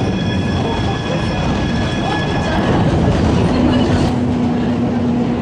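Heritage tram in motion, heard from inside the car: a steady rumble of wheels on the track, with a high-pitched wheel squeal for the first two or three seconds. From about three and a half seconds in, a steady low hum joins the rumble.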